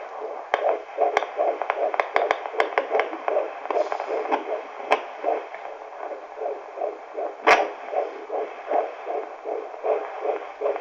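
Unborn baby's heartbeat heard through a fetal Doppler monitor: fast, even beats, a little over two a second, with several sharp clicks breaking in, the loudest about three-quarters of the way through.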